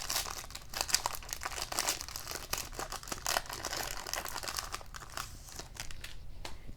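Wrapper of an Upper Deck hockey card pack crinkling and tearing as it is opened by hand, thinning out near the end.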